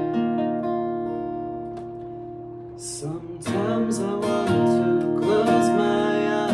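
Acoustic guitar playing: a picked chord rings and slowly fades for about three seconds, then strummed chords start up about three and a half seconds in.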